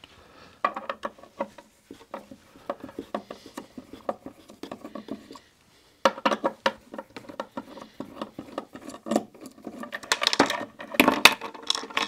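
A hand screwdriver unscrewing a steel cabinet-hinge mounting plate from the inside of a cabinet side: a run of quick, small metallic clicks that stops briefly about halfway, then a few louder knocks and scrapes near the end.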